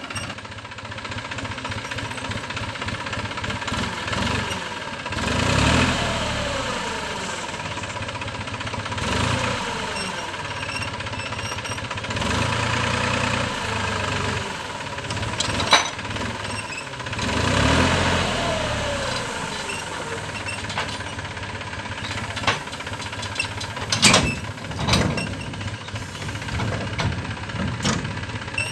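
Diesel farm tractor engine running with a clattering beat, revved up and let down several times as its hydraulics tip a loaded trolley, with a few sharp knocks as the load shifts and clods drop.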